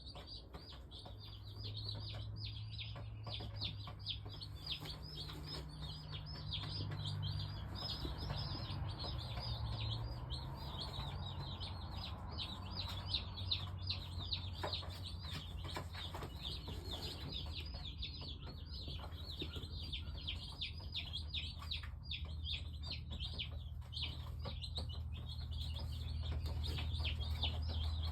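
A brood of day-old Cornish Cross broiler chicks peeping continuously in many overlapping short, high, falling chirps. A low steady hum runs underneath.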